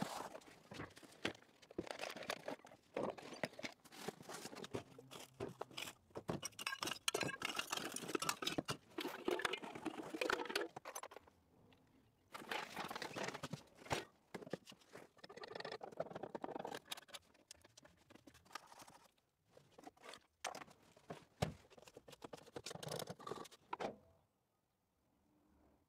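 Crunching and rustling of cardboard and old debris being handled and pulled out of a car's interior, with many sharp clicks and knocks, then quieter scattered handling noises.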